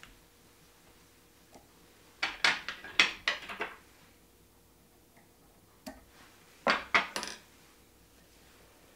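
Small metal fly-tying tools, scissors and a bobbin holder, clicking and clinking as they are handled, in two short bursts of sharp clicks: several about two to three and a half seconds in, and three more near seven seconds.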